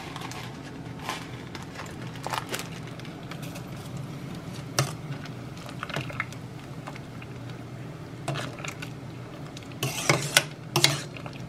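Metal spoon clinking against a stainless steel pot as dried elderflower is spooned into the water and the bay leaf tea is stirred: scattered sharp clinks, busiest near the end, over a steady low hum.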